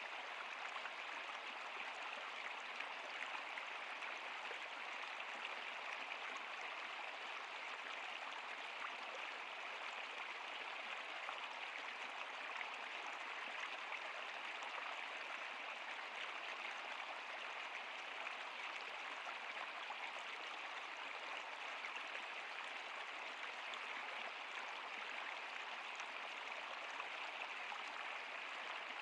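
Stream water running steadily, an even bright rush with no low rumble and no separate splashes.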